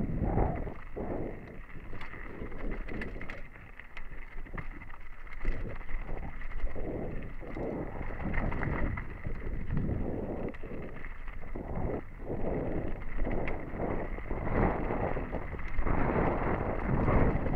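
Mountain bike descending a dry, rocky singletrack: wind buffeting the helmet camera's microphone, tyres rolling over dirt and stones, and frequent knocks and rattles from the bike as it hits rocks, growing louder near the end.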